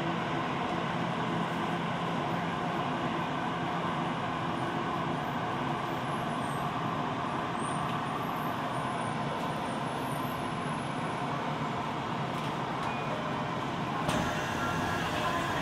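Steady interior noise of a Tokyo Metro Ginza Line subway car, with a low, even hum under it. A sharper, brighter noise comes in about two seconds before the end.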